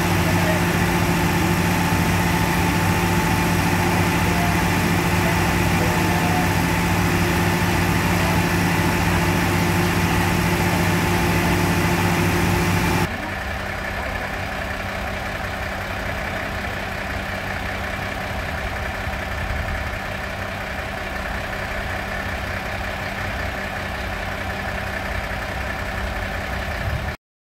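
Fire trucks' diesel engines running at idle, a loud steady hum. About thirteen seconds in the sound cuts to a quieter steady idle from a Renault Midlum fire pump truck.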